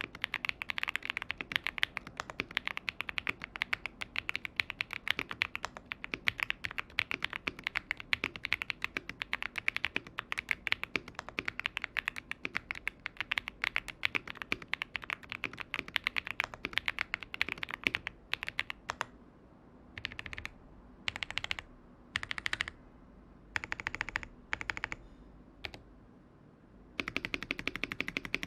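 Typing on a Zoom TKL mechanical keyboard with tactile Akko Cream Blue switches on an aluminium plate, with PE foam between plate and PCB. Fast continuous keystrokes for the first two-thirds, then several short quick bursts of key presses with pauses between them, then fast typing again near the end.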